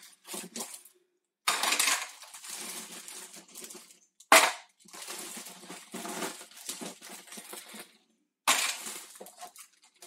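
Ice clattering and crunching in a Slush Puppie slushie maker as more ice is added and crushed, in several rough bursts with a sharp crack about four seconds in.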